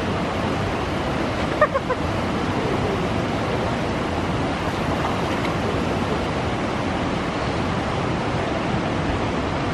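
Steady rushing of flowing water at a hot-spring pool. About a second and a half in come three quick, short high notes.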